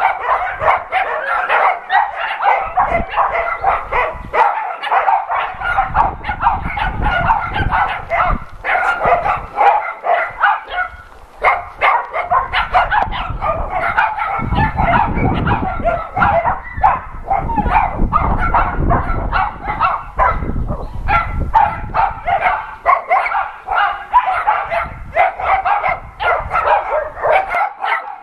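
A group of kennelled dogs and puppies barking and yipping without pause, many barks overlapping into one continuous chorus.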